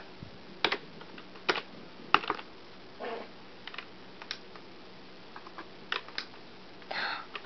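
Scattered single clicks at a computer, about eight of them, unevenly spaced with pauses of up to two seconds between.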